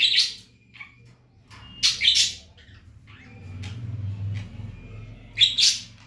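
Indian ringneck parakeet giving three short, loud squawks about two seconds apart, with fainter chirps between them and a low rumble in the middle.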